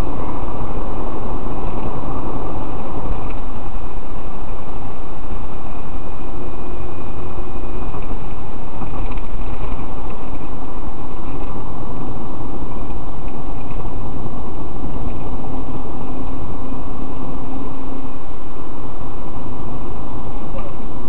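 Steady, loud road and engine noise inside a moving taxi's cabin, with a faint hum coming and going a couple of times.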